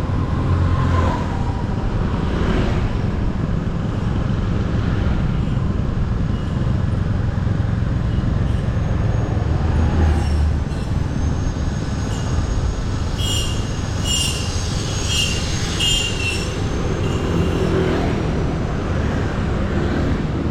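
Motorbike riding along a road: steady engine and road noise with wind rumbling on the microphone. A run of short, high chirps comes in a little past the middle.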